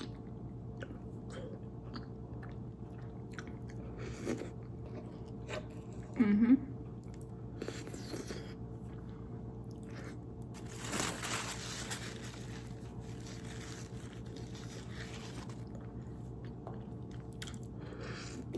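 Close-miked chewing and eating of noodles: small wet mouth clicks and chewing, a brief voiced 'mm' about six seconds in, and a longer hissing sound about eleven seconds in, over a faint steady hum.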